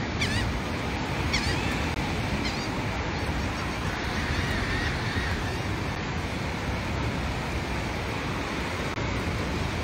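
Steady rush of wind and surf, with a low rumble of wind on the microphone. A few short bird calls in the first few seconds.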